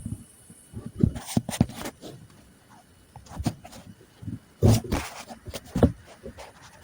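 Irregular knocks, clicks and rustling from handling things, with a few sharper knocks about a second in and around five to six seconds in.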